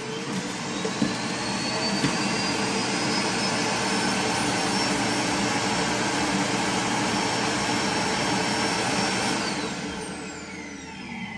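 iRobot Roomba i7+ self-emptying cleaning base running its suction motor to empty the robot's dust bin into the bag: a loud rushing whine that rises in pitch over the first few seconds, holds steady, then winds down with a falling whine about ten seconds in.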